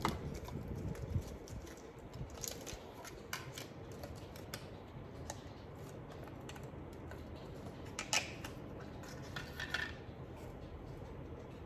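Scattered small clicks and taps of a RAM module and its plastic parts being handled while it is fitted into a memory slot, with one sharper click about eight seconds in.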